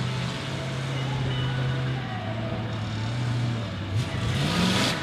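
Half-scale monster truck engine running at a steady low speed, then revving up near the end as the truck accelerates on dirt.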